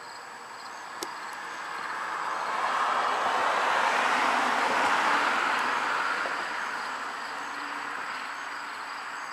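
A passing vehicle: a broad whoosh of road noise that swells over a few seconds and fades away again, with a single sharp click about a second in and crickets chirping faintly throughout.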